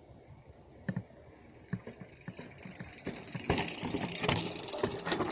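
Mountain bike rolling over a rough, rocky dirt trail: tyre noise and drivetrain rattle with scattered sharp knocks, getting much louder from about three seconds in.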